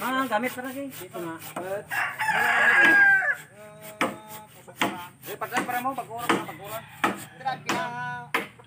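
A rooster crows once, loud and long, about two seconds in, with chicken clucks around it. Sharp, irregular knocks of bamboo being chopped with a bolo come through the whole time.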